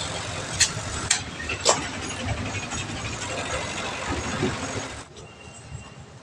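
Steady workshop machine hum with three sharp metallic clicks in the first two seconds, typical of handling a steel wheel rim. About five seconds in, the sound cuts to a quieter background.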